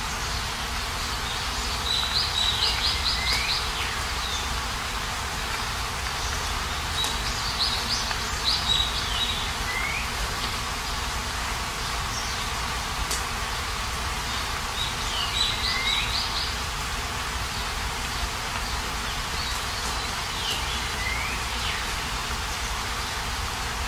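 Steady hiss of falling rain, with a songbird singing four short phrases of rapid high chirps, each ending in a falling note, about every five to six seconds.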